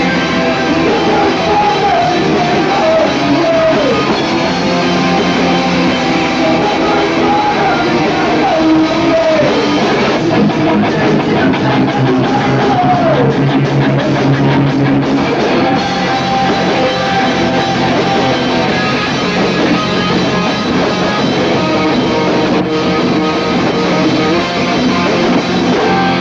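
Punk rock band playing live and loud: electric guitars and drums, with a singer's voice over them through roughly the first half.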